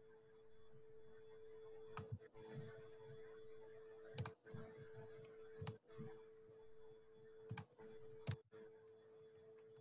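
About five short, faint clicks spaced irregularly over a steady hum on an open microphone.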